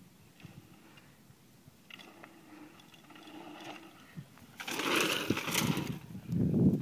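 Mountain bike riding over dirt whoops: tyres on dirt, faint at first and growing as the bike comes close, loudest as it passes by about five seconds in, followed by a low rumble near the end.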